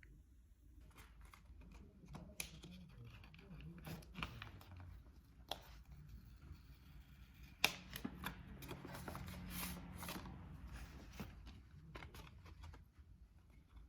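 Paper handling: rustling and crinkling with scattered sharp clicks and taps, loudest about eight seconds in, over a low room hum.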